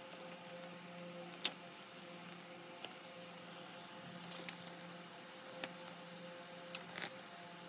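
Pages of a hardcover photobook turned by hand: soft paper rustling with a few sharp page snaps and taps, the loudest about a second and a half in, over a faint steady hum.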